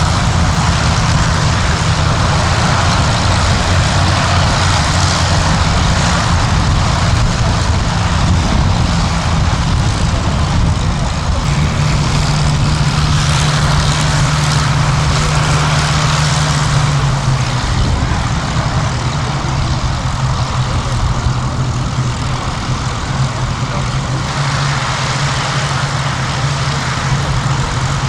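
Several Hawker Hurricanes' Rolls-Royce Merlin V12 engines running on the ground ahead of a formation take-off: a steady, loud propeller-engine drone. Its pitch steps up about twelve seconds in and drops back a few seconds later.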